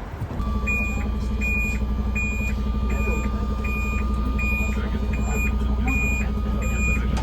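Amphibious bus's 300 PS MAN diesel engine running steadily, with a reversing alarm beeping evenly about once every 0.7 seconds over it. The engine hum comes up about half a second in.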